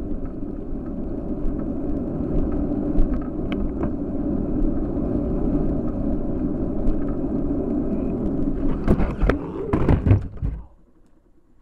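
Steady rumble of wind and tyres on a wet road picked up by a bicycle-mounted camera, with small rattles. About nine seconds in come several loud knocks and clatter as the bike is hit by a van and goes down. Then the noise cuts off suddenly.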